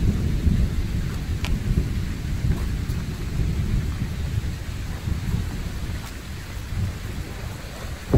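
Wind buffeting the microphone: a steady, uneven low rumble with no clear pitch.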